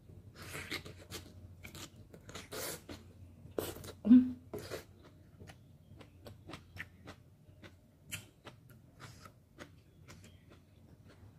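Close-miked wet mouth sounds of eating cooked bok choy from a bowl of ramen: the leaf is slurped in with a few noisy sucking bursts in the first seconds, then chewed with many small wet clicks. About four seconds in, a brief low throat sound stands out as the loudest moment.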